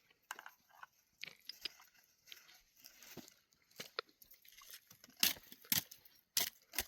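Irregular crunching with sharp clicks and knocks, a few louder ones in the second half.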